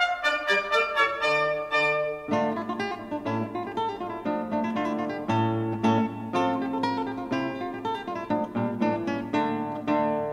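Background music: a fast run of short, quickly repeating notes, joined by a lower accompaniment about two seconds in.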